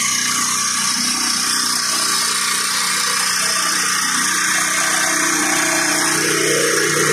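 Tracked rock drilling rig running steadily as it drills into the ground: a constant machine noise with a steady low hum under a strong hiss.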